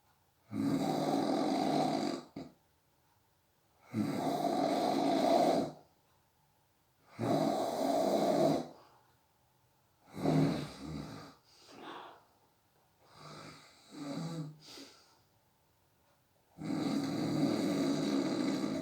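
A sleeping person snoring: six snores about three seconds apart, separated by quiet gaps, with the middle ones broken into shorter, choppier pieces.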